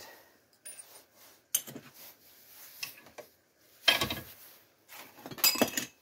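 Small metal hand tools clinking and knocking against a steel bench vise and workbench: a few separate sharp metallic clinks, each ringing briefly, the loudest about four seconds in and another near the end.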